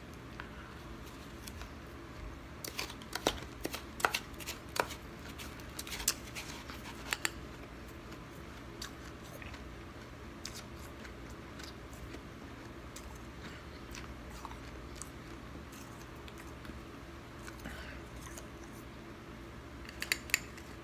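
Crisp crunching of icy snow being chewed up close, a quick run of sharp crunches in the first several seconds thinning to scattered faint ticks. A short cluster of clicks near the end as a metal spoon scoops more snow from a stainless steel bowl.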